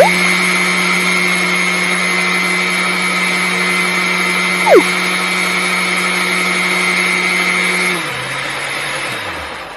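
Electric mixer-grinder motor running at steady speed, grinding ice and coconut flesh in its steel jar, with one brief sharp knock about halfway through. Near the end the motor is switched off and winds down.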